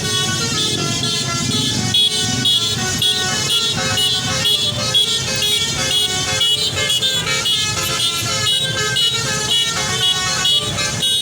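Bus basuri (telolet) horn playing a tune, its notes changing in quick steps without a break, over the low rumble of traffic.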